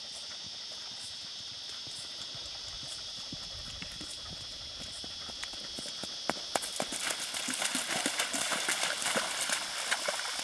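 A horse's hooves splashing through shallow river water, a dense run of sharp splashes and hoof strikes starting about six seconds in and getting louder as it comes closer. Before that, only a few faint hoofbeats on sand under a steady high hiss.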